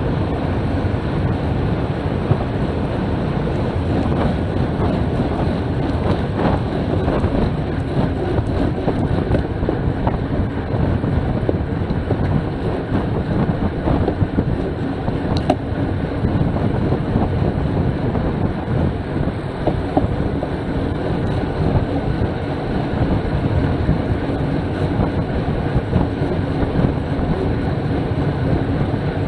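Steady rush of wind on the microphone of a camera riding on a road bike at about 27 mph, mixed with the hum of tyres on tarmac. One faint click near the middle.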